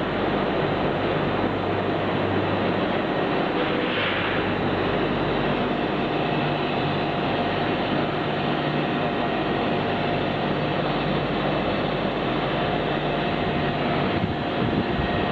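Steady industrial machine noise from a hydraulic high-frequency plastic welding machine running: a continuous hum and hiss with a faint steady whine, and a brief louder hiss about four seconds in.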